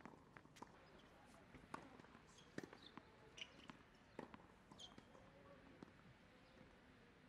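Faint thuds of a tennis ball bounced on a hard court before a serve: several single knocks, a little under a second apart.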